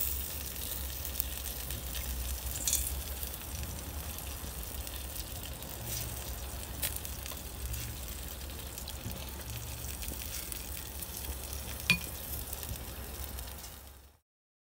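Chicken quarters sizzling on a barbecue grill rack, a steady frying hiss over a low hum, with a few sharp pops, the loudest near the end. The sound fades out shortly before the end.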